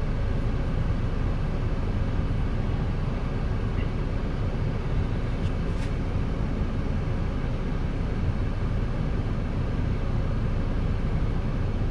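Steady low rumble inside a Mazda CX-5's cabin with the engine running.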